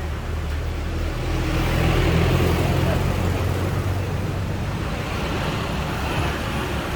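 Low, steady engine rumble, swelling about two seconds in and slowly easing off.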